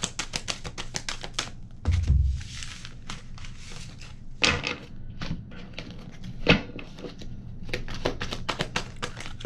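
A deck of oracle cards being shuffled: quick runs of flicking card clicks, a few separate knocks in the middle, then more rapid flicking near the end.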